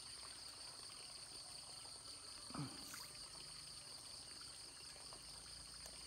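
Faint pond-side ambience: water trickling, under a steady high chirring of insects. About two and a half seconds in comes one brief, low sliding sound.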